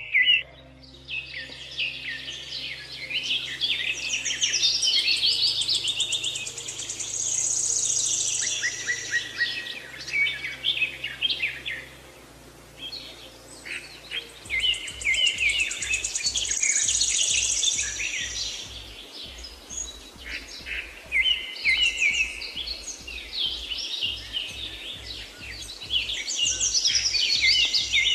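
Birdsong: several birds singing in phrases of fast chirps and trills, over background music of held low notes that turn into a pulsing low beat about halfway through.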